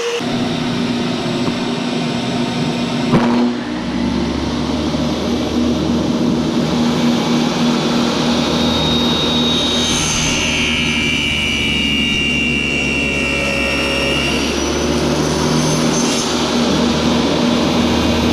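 Electric power tool running steadily with a motor hum. There is a knock about three seconds in, and a higher whine that sags slightly in pitch for a few seconds past the middle, as the tool works the piece.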